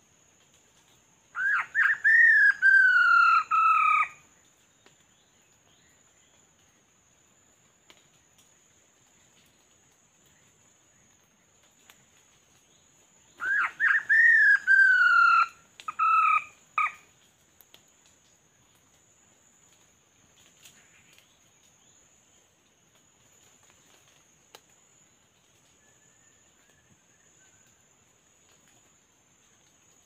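A bird gives two loud calls about twelve seconds apart, each a falling, crow-like phrase of two and a half to three and a half seconds; the second breaks into short pieces near its end. A faint, steady high insect drone runs underneath.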